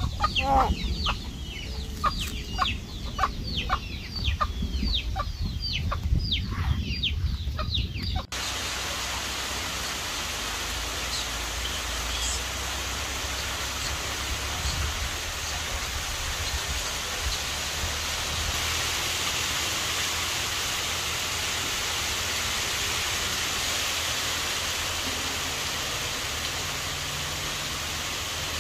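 Poultry calling: a fast run of short, high peeps, each falling in pitch. About eight seconds in it cuts off abruptly to steady rain falling.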